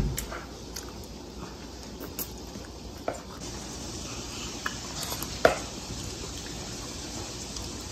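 Small child eating tomatoes and broccoli: a few light clicks of a utensil against a dish, the clearest about three and five and a half seconds in, over a steady low hiss.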